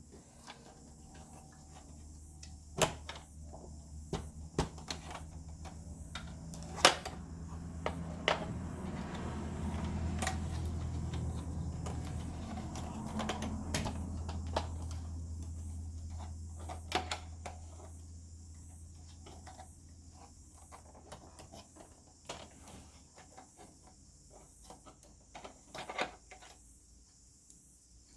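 Scattered clicks and knocks of plastic and metal projector parts being handled and pried apart during disassembly. A low rumble swells in the middle and fades again.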